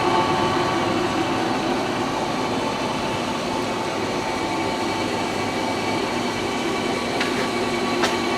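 Leblond engine lathe headstock running steadily under power, its gearing giving a steady whine of several tones over a mechanical hum, with a couple of light clicks near the end. The head sounds good.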